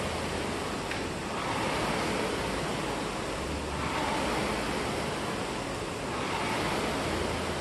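Air-resistance rowing machine's flywheel fan whooshing, swelling with each drive stroke and fading on the recovery, about once every two and a half seconds.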